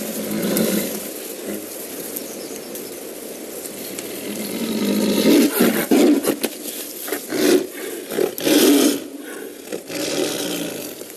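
A snared Siberian tiger growling and snarling, breaking into several loud roars in the second half.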